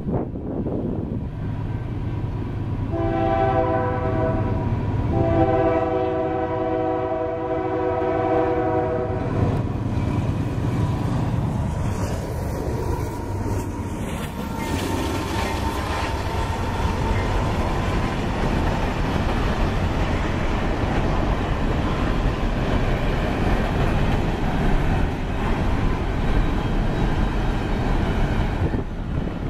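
Diesel locomotive air horn on an empty coal train led by GE AC44CW-type units: a short blast about three seconds in, then a long blast lasting about four seconds. The train then rolls past with locomotive engine rumble, followed by the rattle and clatter of empty coal hoppers on the rails.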